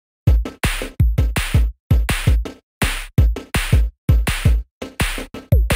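Electronic drum-machine beat: deep, punchy kicks and noisy snare hits in a fast, regular pattern, each cut off short with brief silences between hits.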